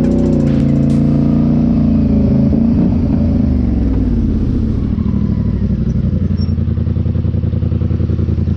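Polaris Sportsman 850 ATV's twin-cylinder engine running under way through a Big Gun Evo U aftermarket exhaust. Its pitch rises briefly just after the start and dips about three seconds in, then holds steady.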